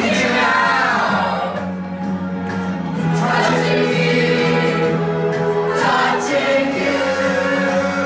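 Music: a choir singing long held notes.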